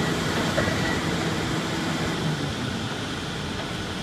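Demolition excavator running with a steady mechanical noise and a low hum that fades out about two and a half seconds in; the machine, not its shear, is making a sound that 'doesn't sound good', which the owner fears is a really expensive fault.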